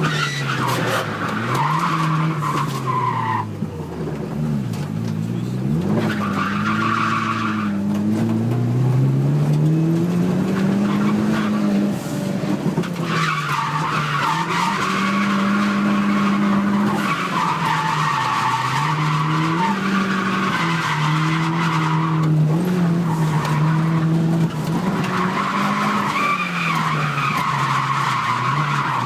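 Nissan 200SX S13's turbocharged CA18DET four-cylinder revving up and down through a drift, with the rear tyres squealing almost throughout; the squeal drops out briefly a few times as the car straightens between slides.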